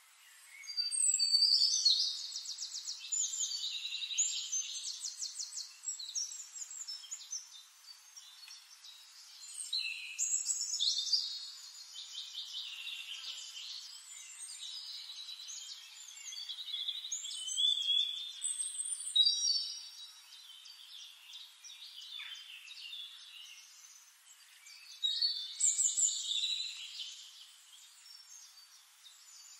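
A songbird singing: four loud, high-pitched trilled song phrases, each a few seconds long, with quieter chirping between.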